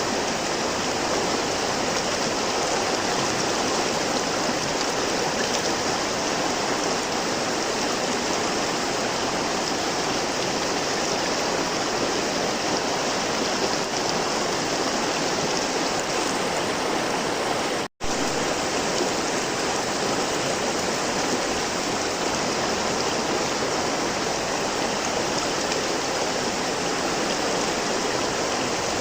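River water flowing, a steady, even rush that cuts out completely for a split second about two-thirds of the way through.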